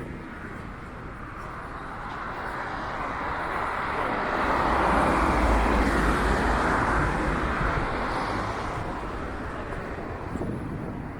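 A road vehicle passing by: its engine and tyre noise swells steadily to a peak about halfway through, then fades away, over a background of city traffic.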